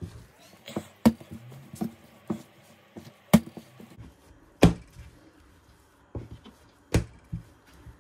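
Soft bread dough being kneaded and rolled by hand on a pastry mat on a table: a series of sharp knocks of hands and dough against the table, four of them loud and one to two seconds apart, with softer knocks in between.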